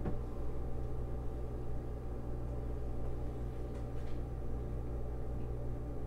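Whirlpool WRF535SWHZ French-door refrigerator running with a steady low hum, and a couple of faint clicks about four seconds in.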